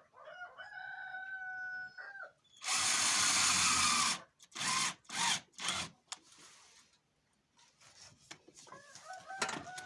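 A rooster crows twice, once at the start and again near the end. Between the crows a cordless screwdriver drives a self-tapping screw, with one long burst followed by three short ones.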